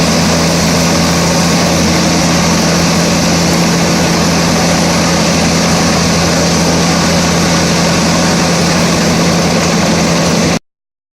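Pezzolato PTH 900 M drum wood chipper running steadily, driven by its 429 hp IVECO C10ENTX diesel engine, with a strong low hum under a broad mechanical noise. The sound cuts off abruptly near the end.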